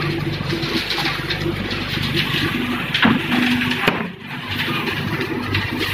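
Paver-block making machinery running: a steady motor hum with rattling and a few sharp knocks near the middle.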